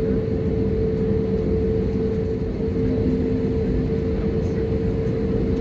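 Cabin noise of an Airbus A320neo taxiing, heard from a seat over the wing: a steady rumble from the idling CFM LEAP-1A engines and air conditioning, with a steady low hum running through it.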